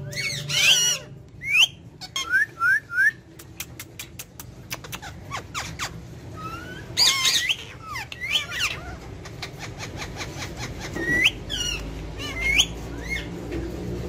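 Green ringneck parakeets squawking: short rising calls, three quick ones in a row about two seconds in, and louder clusters of calls around seven seconds and again near twelve seconds. A run of rapid clicks comes between the first calls.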